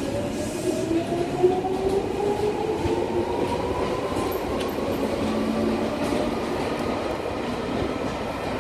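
Chichibu Railway electric train pulling away from the platform: its traction motors whine in a pitch that rises over the first few seconds as it gathers speed and then levels off, over the steady rumble of wheels on the rails.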